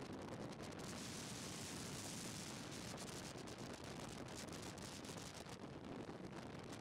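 Wind rushing over the microphone and skateboard wheels rolling on rough asphalt at downhill speed: a steady rushing hiss with a fine crackle, its hiss brightest a second or two in.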